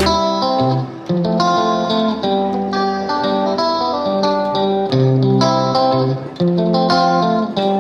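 Background music led by plucked guitar, playing a melody of clear, evenly paced notes, with no drums.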